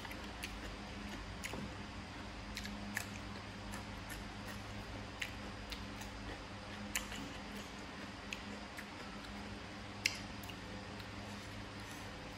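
A person chewing papaya salad close to the microphone, with irregular sharp wet clicks and smacks spaced a second or so apart, over a steady low hum.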